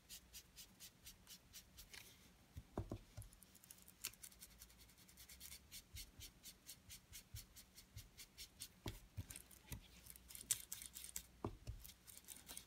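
Round ink blending tool rubbed over cardstock in quick, even strokes, about five a second, laying distress ink onto the paper as a sky background. A few soft knocks come in between.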